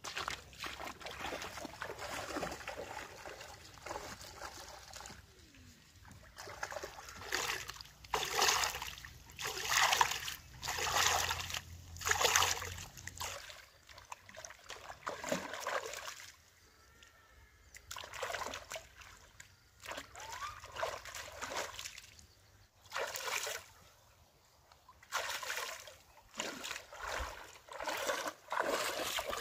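Water splashing and sloshing in irregular bursts as a person wades through a shallow stream and works in it with her hands and feet, with quieter gaps of flowing water between.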